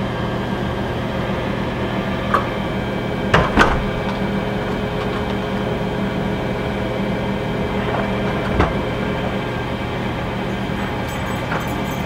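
Small benchtop wood lathe running with a steady motor hum while a pen blank is worked on it by hand. A few short knocks sound over the hum, two close together about three and a half seconds in and one more near the nine-second mark.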